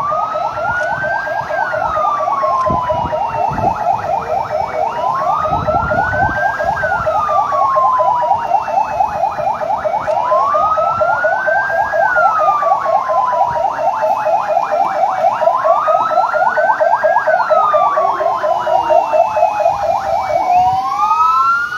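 Emergency vehicle siren wailing: a tone rises for about a second and falls away slowly, repeating roughly every five seconds, over a fast pulsing warble. Near the end a second rising siren tone overlaps it.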